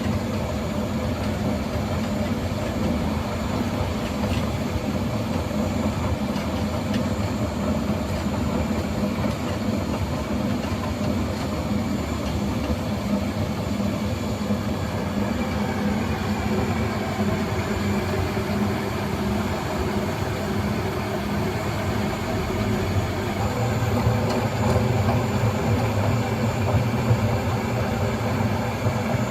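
Airtec BS 825 RC planetary floor grinder running, its diamond segments grinding the floor surface with a steady mechanical drone and low hum, a little louder in the last few seconds.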